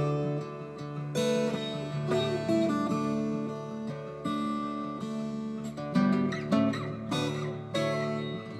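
Instrumental acoustic guitar music: plucked notes and strummed chords.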